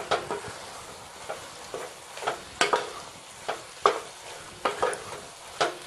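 Wooden spatula stirring drumstick pieces, onion and tomato with spice powders in a nonstick pan, scraping and knocking against the pan at irregular intervals over a faint frying sizzle.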